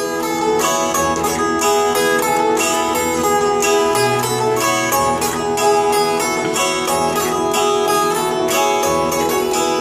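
Baloch benju, a keyed zither, playing a fast plucked melody of rapid notes over a bass line that pulses at a steady beat.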